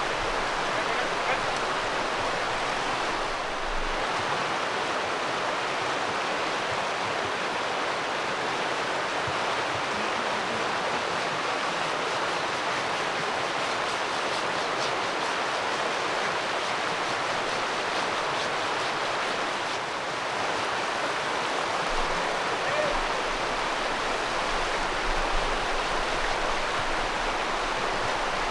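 Shallow river water rushing steadily over a gravel bed.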